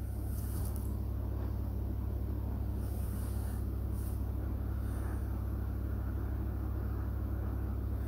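Semolina-and-milk dough balls deep-frying in hot sunflower oil in an iron kadai: a steady bubbling sizzle over a constant low hum.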